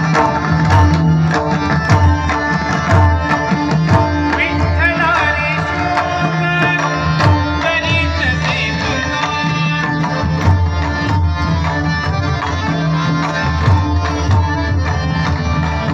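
A large ensemble of pakhawaj barrel drums played together in a steady rhythm, backing a Marathi devotional abhang over a steady harmonium drone. Brief wavering sung phrases come in about four seconds in and again near the middle.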